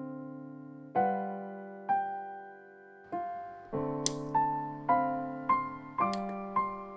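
Solo piano music, slow single notes following one another, with a sharp click about four seconds in and fainter clicks near the end.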